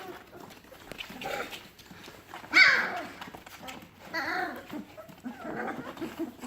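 Three-week-old puppies whining and yelping as they play: several short, high calls. The loudest comes about two and a half seconds in and falls in pitch.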